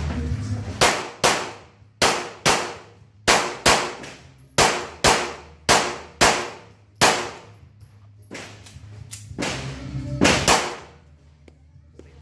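A string of handgun shots, about sixteen, most of them in quick pairs under half a second apart, each a sharp crack with a short echo. This is an IDPA course of fire.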